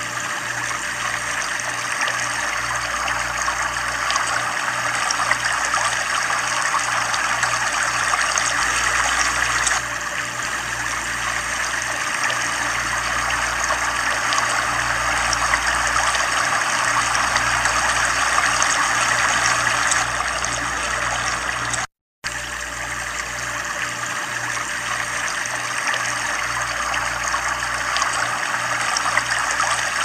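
Waterfall: a steady rush of falling water. It cuts out for a moment about three-quarters of the way through, where the looped recording restarts.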